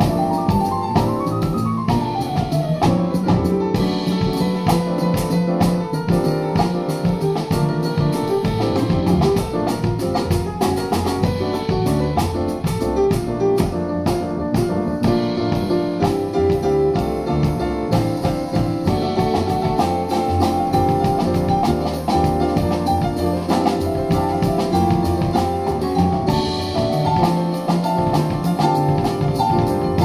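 Jazz piano trio playing live: acoustic grand piano carrying dense, quick lines over double bass, with a drum kit keeping time on cymbals and drums.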